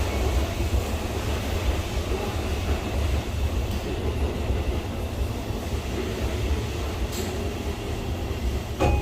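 Interior sound of a JR East E233-2000 series electric train, heard inside its cab-end trailer car: a steady low rumble of the car and wheels on the rails. Near the end there is a sharp knock, after which a couple of steady tones start.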